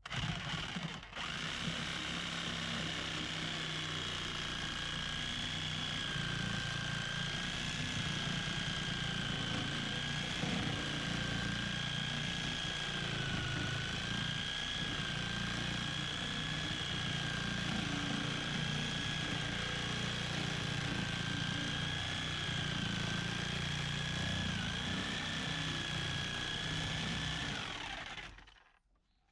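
Power saw running steadily as it cuts through the wall's wood framing, its motor whine wavering slightly under load, then stopping near the end.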